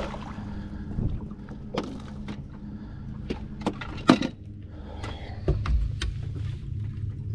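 Knocks and clatter as a landing net holding a bass is swung over the side and set down in an aluminium fishing boat, the net handle and rods bumping the hull and deck. The loudest knock comes about four seconds in, with a cluster more near the end, over a low steady hum.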